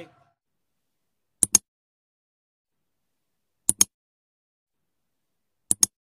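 Three pairs of sharp, quick clicks about two seconds apart, with dead silence between them: the mouse-click sound effects of a like-and-subscribe button animation.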